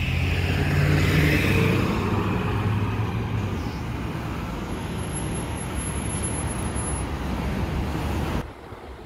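A city bus's engine drone, low and fading out over the first few seconds as the bus pulls away, over the steady noise of road traffic. The sound drops abruptly near the end.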